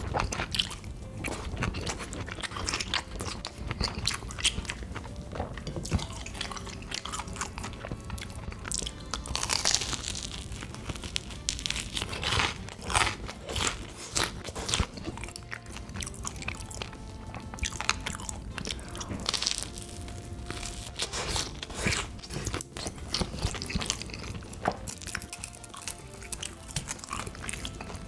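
Close-miked eating sounds: chewing of sausage, then crunchy bites into a crisp-coated corn dog, with many short crackly crunches throughout. Soft background music plays underneath.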